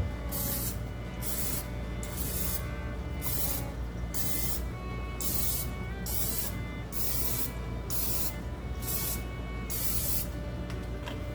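Cooking oil spray hissing in a long run of short squirts, about fifteen in all, one every half second or so, greasing the cups of a cupcake pan.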